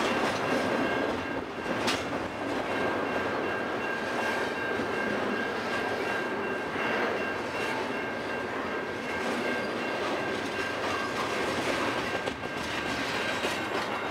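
Double-stack intermodal well cars rolling past close by, a steady rolling noise of steel wheels on rail with a thin steady high tone running under it. The last car clears near the end.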